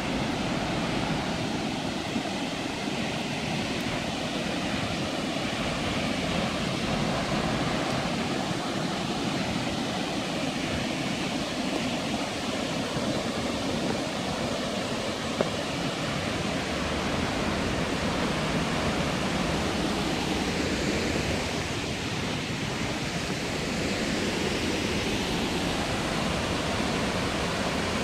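Steady rushing roar of a waterfall, an even wash of falling water, with one brief click about halfway through.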